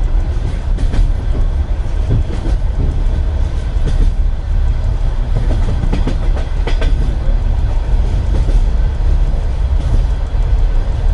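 Russian Railways passenger carriage in motion, heard from inside a compartment: a steady low rumble with the irregular clack of the wheels over rail joints, a few sharper clacks about six to seven seconds in.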